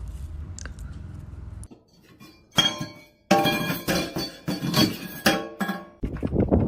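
A low rumble cuts off, then hard objects clink: one sharp strike, then a rapid run of clinks, each ringing briefly, like glass or dishes knocking together.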